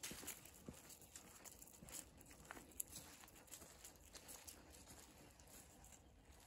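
Faint footsteps through dry fallen leaves: an irregular scatter of soft rustles and crackles, with one sharper tick a little before the middle.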